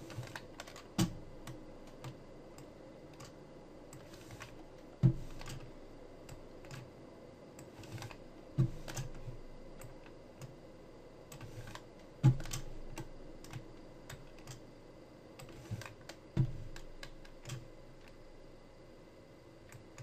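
Clicking and tapping on a computer mouse and keyboard: about five sharper knocks a few seconds apart, with lighter taps between them, over a faint steady hum.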